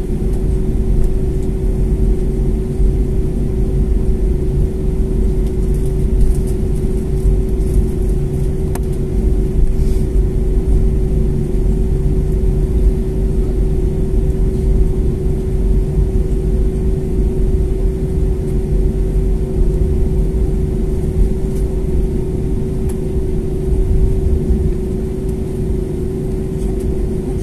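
Cabin noise of an Airbus A320neo taxiing, its Pratt & Whitney PW1100G geared turbofan engines at idle: a steady hum held on one tone over a constant low rumble.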